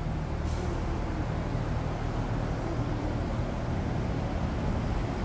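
Steady low rumble of vehicle noise, even throughout with no distinct events.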